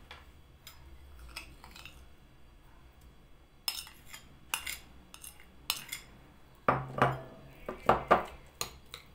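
Kitchen utensil clinking and knocking against a bowl in a string of separate strikes, the loudest coming about seven to eight seconds in.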